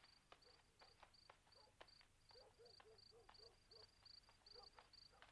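Faint crickets chirping steadily, about three short high chirps a second. A fainter, lower warbling call repeats a few times in the middle.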